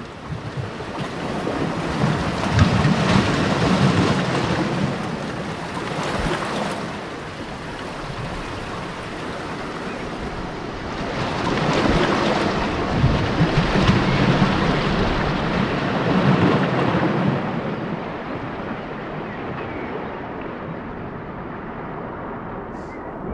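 Sea waves breaking and washing over rocks: two long surges of rushing water, each swelling and fading over several seconds, then a lower steady wash.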